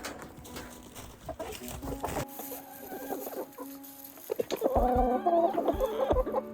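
Chickens clucking, the calls louder and busier in the last two seconds.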